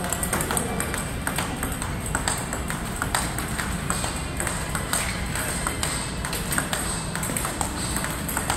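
Table-tennis ball clicking off rubber-faced paddles and bouncing on the table in a steady forehand practice rally, about two sharp hits a second.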